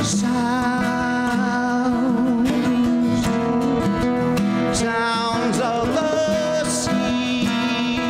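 Live acoustic music: a nylon-string classical guitar and a steel-string acoustic guitar playing over congas, with a man singing.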